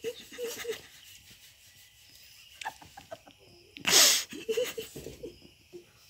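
A person's breathy, wheezy laughter, with one sudden loud burst of breath about four seconds in.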